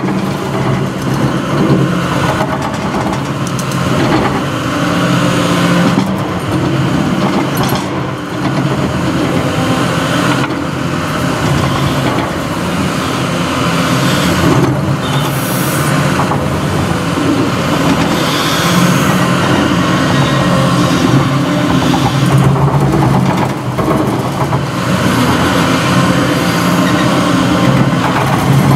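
Caterpillar 330F hydraulic excavator's diesel engine running steadily under working load, with occasional sharp knocks and crunches as the bucket tears out a thuja hedge and its root soil.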